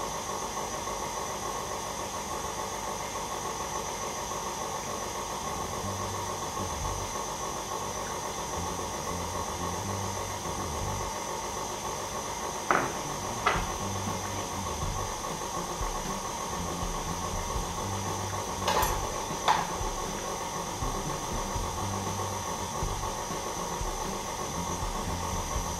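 Electric stand mixer running steadily, beating Swiss meringue buttercream as melted chocolate is added. Two pairs of light knocks, about halfway through and again a little later, from a spatula tapped against a bowl.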